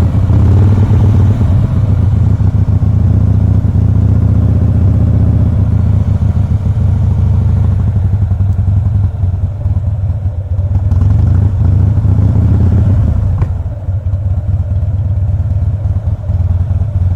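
2007 Harley-Davidson Softail Custom's Twin Cam 96 V-twin running under way, its engine speed dipping and picking up a little. The bike is running sluggishly and is prone to stalling, so the rider keeps it revved to keep it from dying.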